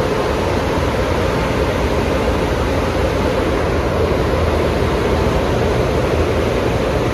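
Automatic car wash tunnel running: a steady rushing noise of water spray and machinery, with the spinning cloth top brush.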